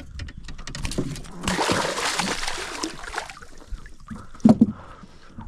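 Water splashing and sloshing, heaviest for a couple of seconds, followed by two loud thumps near the end.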